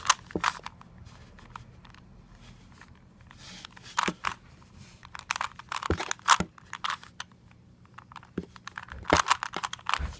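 Rubik's cube being turned by hand: its plastic layers click and clatter in quick, irregular flurries, with short pauses between them.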